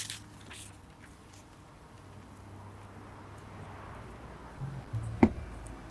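A quiet pause between speakers: faint outdoor ambience with a low steady hum, and one soft knock about five seconds in.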